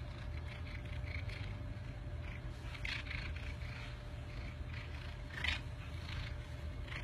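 A cat purring steadily, a low continuous rumble, while it rubs its head against a bearded chin. Short scratchy rustles of fur rubbing on stubble come and go over it, the strongest about five and a half seconds in.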